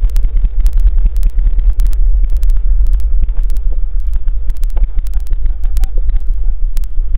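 Side-by-side UTV engine idling, heard as a loud, steady low rumble through the vehicle-mounted camera, with a rapid rattling clatter over it.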